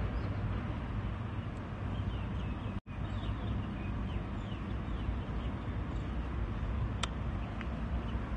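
Steady low outdoor rumble, with a bird giving a run of short, falling chirps in the middle. The sound drops out completely for a split second about three seconds in, and there is a sharp click about seven seconds in.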